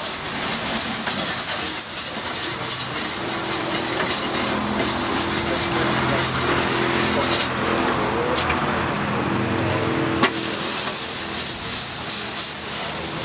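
Wet three-sided grill brush scrubbing the hot grill plate of a Weber Q gas barbecue, the water hissing and sizzling into steam as it is worked back and forth. A single sharp knock about ten seconds in.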